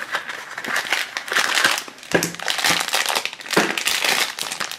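Crinkly foil blind bag rustling and crackling as hands pull it from a small cardboard box and open it, with a few sharper crackles along the way.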